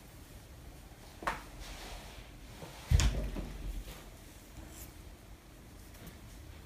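Quiet handling noises of hands pulling and stretching hair down against a T-shirt, with a sharp knock about a second in and a louder, deeper thump about three seconds in, followed by soft rustling.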